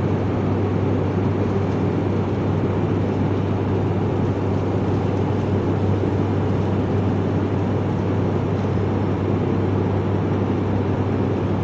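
Steady aircraft cabin noise in flight: a constant low drone under an even rushing hiss, unchanging throughout.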